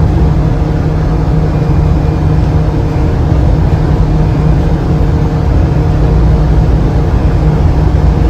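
Morgantown Personal Rapid Transit pod running along its guideway, heard from inside the cabin: a loud, steady running noise with a low hum and a few steady tones over it.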